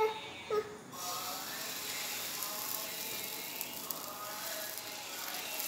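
Dosa batter starting to sizzle on a hot non-stick tawa, coming on suddenly about a second in as the batter lands, with light scraping from the ladle spreading it into a thin round.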